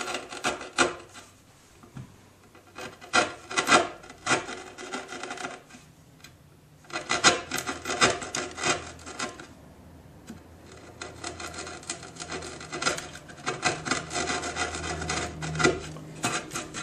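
Bench chisel, pushed by hand, paring and levering out the notched waste of a hinge mortise in wood: repeated short scraping and crunching strokes in several runs, with brief pauses between them.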